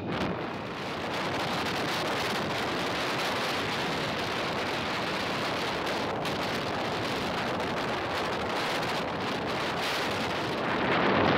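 Wind rushing over the microphone of a phone on a moving motorcycle: a steady, even rush of noise with no clear engine note.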